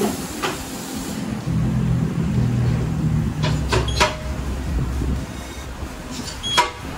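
A wheel balancer spins a tyre and alloy wheel on its shaft for about two seconds with a steady motor hum while balancing the wheel. Several sharp metallic clicks and knocks follow as the wheel is handled on the shaft, with one last knock near the end.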